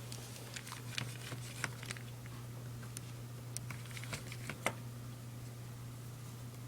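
Scattered small clicks and taps of a screwdriver and fingers working a screw out of a MacBook A1278's case, with one sharper click about two-thirds of the way through, over a steady low hum.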